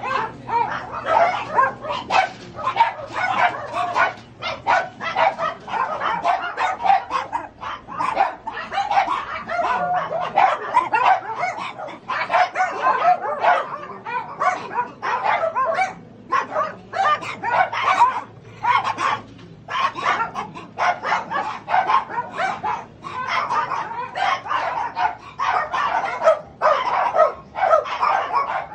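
Several dogs barking and yipping without letup, the calls overlapping several times a second with only brief pauses.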